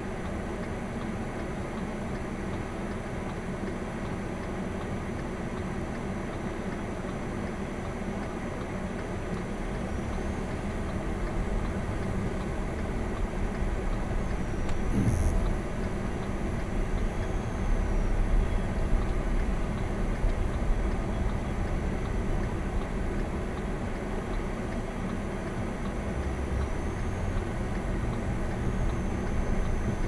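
Car engine and tyre noise heard from inside the cabin. It is steady and low at first while the car idles, then grows louder about a third of the way through as the car pulls away and gathers speed, with a short thump near the middle.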